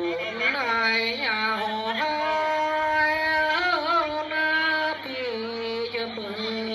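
A single voice singing a slow festive folk song, holding long notes with wavering ornamental turns and moving to a new pitch about two seconds in and again about five seconds in.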